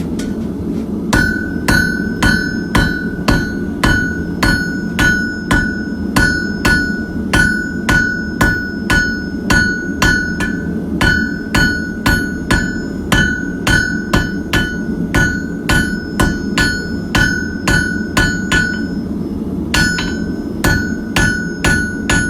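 Blacksmith's hammer striking hot steel on an anvil, about two blows a second, each with a clear ringing ping, drawing the steel out to a point for a hook tool. The hammering stops briefly about nineteen seconds in and then resumes. A steady low rumble runs underneath.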